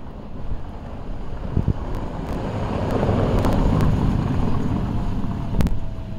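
A car driving slowly past over cobblestones, its engine and tyre rumble swelling to a peak about halfway through and then easing off.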